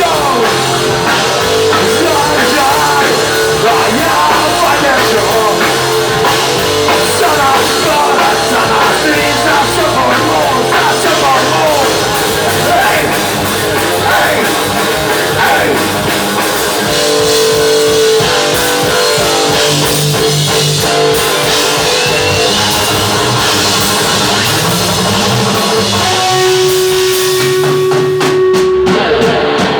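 Rock band playing an instrumental passage: a wavering electric guitar line over bass and drum kit, thinning to a few held notes near the end.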